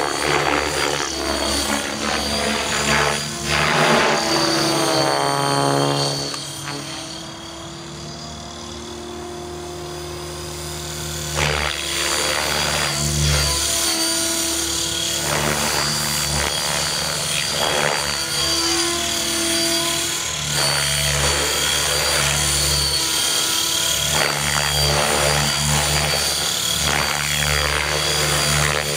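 Outrage Fusion 50 electric RC helicopter in 3D aerobatic flight: the rotor blades and motor whine rise and fall in pitch as the collective and manoeuvres change. The pitch drops as it sweeps past a few seconds in, and it goes quieter for a few seconds near the middle before coming back loud.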